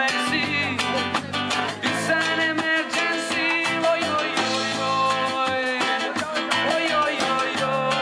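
Live band music: a man singing into a microphone over a strummed acoustic guitar, with timbales struck with sticks keeping a steady beat.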